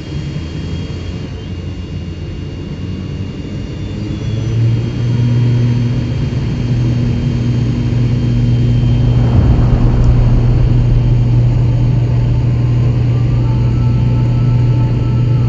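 Airliner jet engine drone heard from the cockpit: a steady low rumble and hum that grows louder about four seconds in, with a brief rushing swell near the middle.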